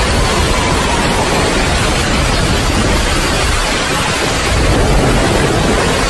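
Steady rain, a dense even hiss with a low rumbling undertone and no breaks.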